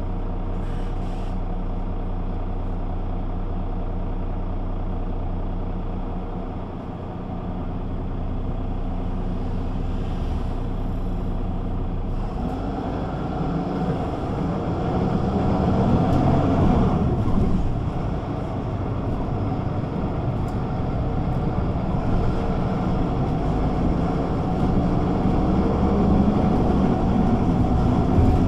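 Güleryüz Cobra GD 272 city bus engine running steadily at idle, then from about halfway through building up as the bus pulls away and accelerates, easing off briefly and then rising again near the end.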